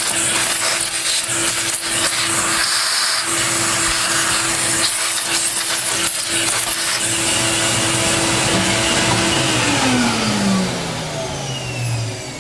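Vacuum cleaner running steadily with its nozzle scraping and knocking as it sucks debris out of a motor bay, then switched off about ten seconds in, its motor whine falling in pitch as it winds down.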